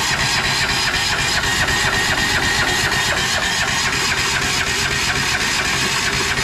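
Electric starter cranking a 420cc single-cylinder small engine in a steady, even rhythm, about six beats a second, without it catching and running. The engine won't start, which the owner puts down to a spark plug he found bent in and re-gapped.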